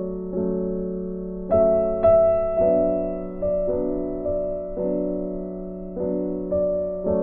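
Background piano music: slow, sustained chords, a new one struck about once a second and left to ring and fade.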